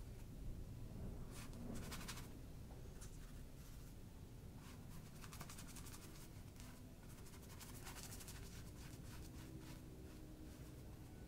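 Paintbrush scratching across a painted panel in short runs of quick strokes, soft and dry-sounding, over quiet room tone.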